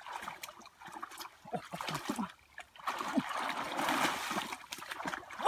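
Muddy water splashing and sloshing as a person kneeling in a shallow pool gropes through it with both hands, feeling for fish in the mud. The splashing is irregular and busiest in the second half.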